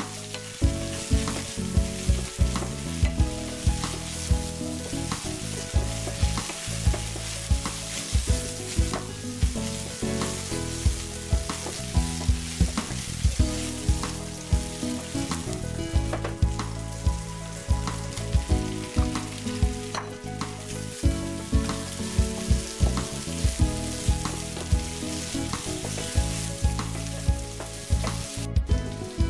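Bite-size chicken thigh pieces sizzling in oil in a nonstick frying pan, stirred and pushed around with a wooden spatula.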